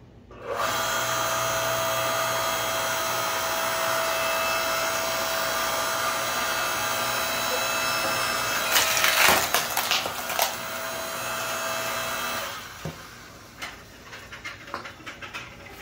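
A 6.5-ton electric log splitter's motor and hydraulic pump start about half a second in and run with a steady whining hum as the ram drives a hardwood log into the wedge. Around nine to ten seconds in the wood gives loud sharp cracks as it splits, and the motor cuts off at about twelve and a half seconds, followed by a few light clatters.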